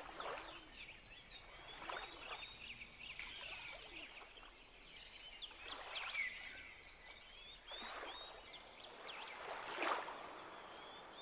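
Faint outdoor ambience of birds chirping, with soft swells of noise every couple of seconds.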